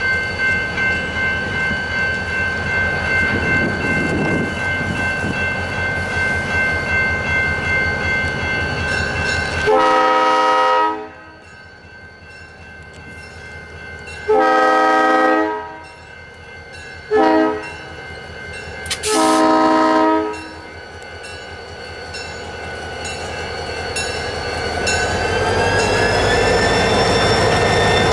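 Diesel freight locomotive, an EMD GP40, running steadily, then sounding its multi-chime air horn in the grade-crossing pattern: long, long, short, long, starting about ten seconds in. Near the end the engine throttles up, its pitch rising as it pulls away.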